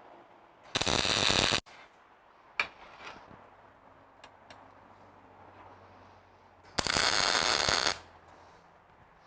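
Two short tack welds with an arc welder on a steel bumper bracket, each a steady burst of arc noise lasting about a second, the second coming about six seconds after the first. A few light clicks of metal being handled fall between them.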